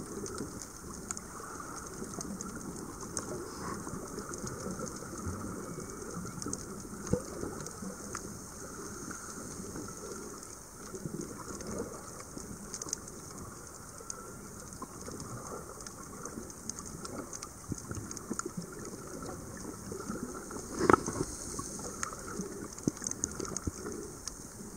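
Underwater ambience picked up by a submerged camera in shallow reef water: a steady crackling hiss with scattered small clicks, and one louder knock about twenty seconds in.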